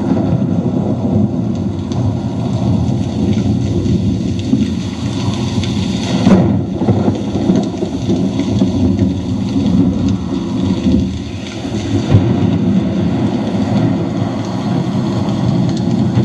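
Thunderstorm: a continuous rolling rumble of thunder with rain, and louder claps about six and twelve seconds in.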